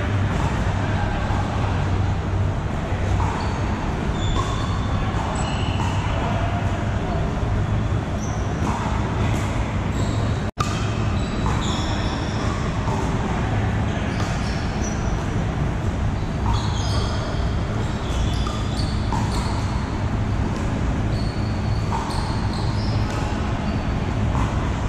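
Pickleball paddles hitting a plastic ball, hollow pocks every second or two from this court and the courts around it, echoing in a large hall, over distant voices and a steady low hum.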